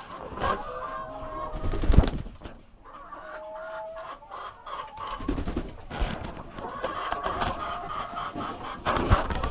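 A flock of laying hens clucking and calling over one another, with a loud thump about two seconds in.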